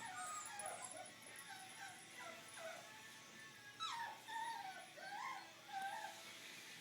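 Young kittens mewing: a run of short, high, wavering mews, quiet overall, with a louder cluster starting about four seconds in.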